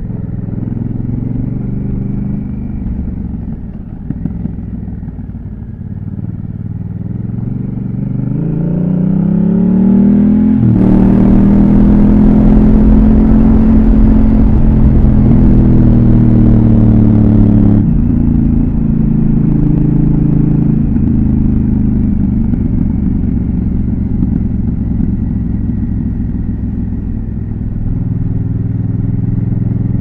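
Honda CRF1000L Africa Twin's 998 cc parallel-twin engine running under way. Its note climbs as the bike accelerates about 8 to 10 seconds in, and it is loudest, with a hiss over it, from about 11 to 18 seconds. It then drops back to a steadier cruise.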